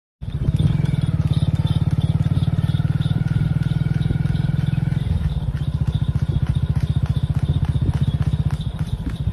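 Motorcycle engine running steadily with a fast, even putter; its note eases slightly about five seconds in.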